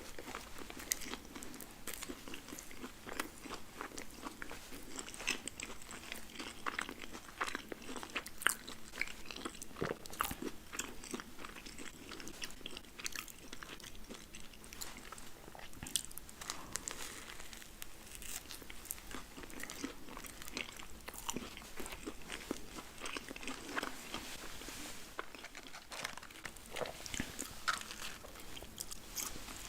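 Close-miked eating sounds: crunchy bites and continuous wet chewing of a burger and French fries, with many irregular crisp crackles.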